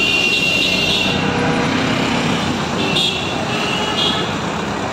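Dense city road traffic: a steady rumble of engines and tyres from buses and motorbikes. Short high-pitched horns sound at the start and again about three seconds in.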